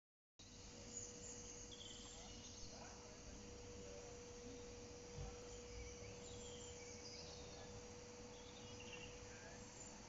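Quiet outdoor ambience: a faint steady hum held at one pitch, with scattered faint short chirps in the distance and a low rumble.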